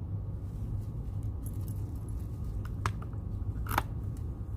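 A locksmith's control key clinking against other keys as it is handled, with a few short metal clicks about three to four seconds in. A steady low hum runs underneath.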